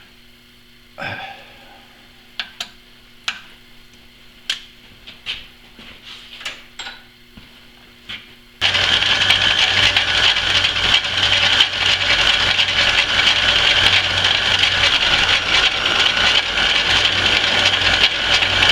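A number of sharp clicks and knocks of tools being handled on the machine. Then, about a third of the way in, a metalworking lathe starts up suddenly and runs steadily and loudly, taking one more light boring pass that removes only small shavings.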